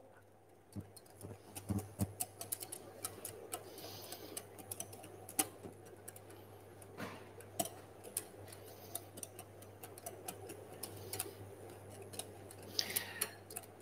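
Wire whisk tapping and scraping against a glass bowl as a sauce is whisked while it heats over a saucepan, giving many irregular light clinks and ticks.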